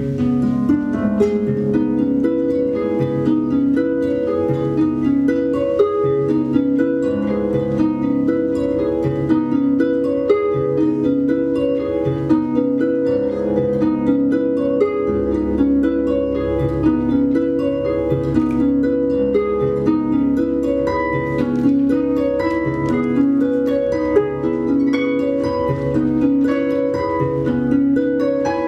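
Two concert harps played together: a steady, repeating pattern of plucked notes in the middle register over lower bass notes.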